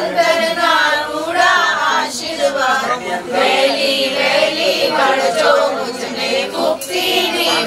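A group of voices, women's voices prominent, singing a Gujarati Jain devotional song on renunciation of the kind sung before a diksha initiation.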